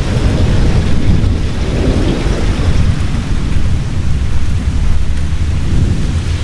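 Heavy rain pouring steadily, with the continuous low rumble of rolling thunder underneath.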